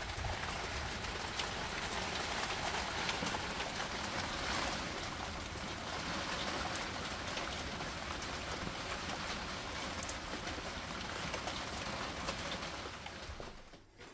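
Steady rain falling, with the odd nearer drop ticking; it fades away in the last second.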